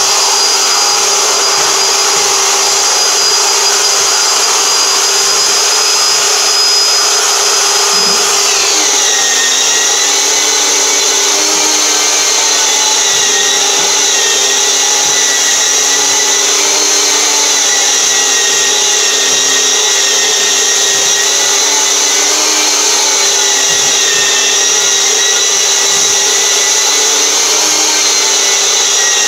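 Long-reach pole drywall sander with its dust-extraction vacuum hose running steadily while sanding drywall compound: a loud, constant whine over the hiss of suction. About eight seconds in the whine drops in pitch and stays lower.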